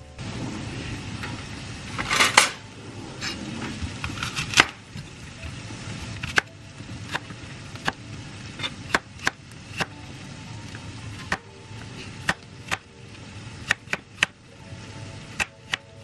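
Chef's knife slicing a peeled apple on a cutting board. The blade knocks sharply on the board, irregularly, about one or two times a second, with louder stretches of cutting noise about two and four seconds in.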